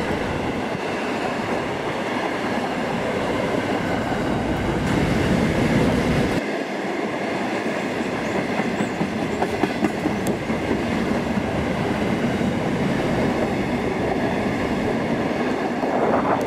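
A freight train's wagons rolling past, a steady rumble with wheels clacking over rail joints. The deepest part of the rumble drops away abruptly about six seconds in.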